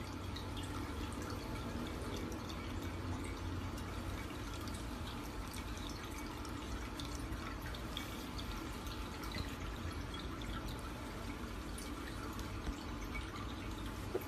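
Water dripping, with many small irregular drips over a steady low hum.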